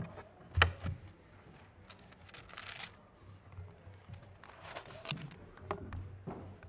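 Papers rustling and small knocks as notes are handled on a wooden pulpit, with one sharper thump about half a second in and brief rustles around the middle.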